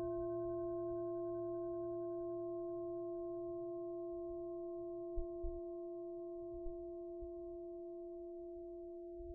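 Singing bowl ringing on after a strike, a steady low hum with a strong higher overtone, slowly fading; its highest overtone dies away in the first few seconds. It marks the start of a three-minute silent meditation. A few soft low thumps come about halfway through.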